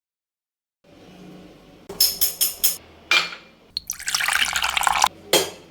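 A few quick glassy clinks, then liquid poured into a glass in a short splash and a longer pour of about a second, with another brief splash near the end.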